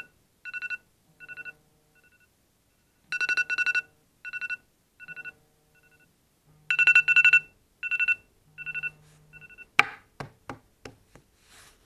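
iPhone alarm tone going off: bursts of rapid two-tone beeps, each burst fading away in quieter repeats, about every three seconds. About ten seconds in it stops with a sharp click as the alarm is turned off, followed by a few taps and knocks of the phone being handled.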